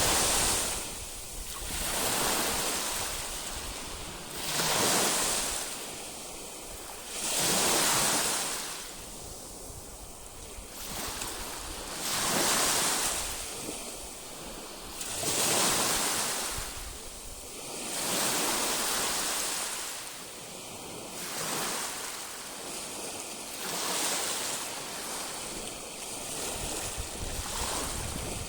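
Baltic Sea waves breaking on the shore, each wash swelling and fading, one about every two to three seconds.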